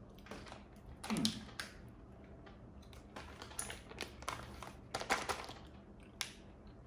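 Scattered light clicks and rustles from handling and eating gummy candies. A short voiced hum comes about a second in.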